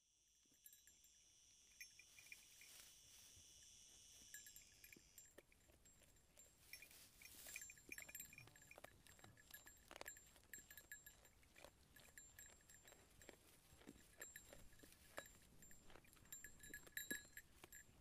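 Sheep grazing close by, heard faintly: many soft clicks and rips of grass being bitten off, with brief high tinkling tones now and then. A faint steady high ringing fades out about five seconds in.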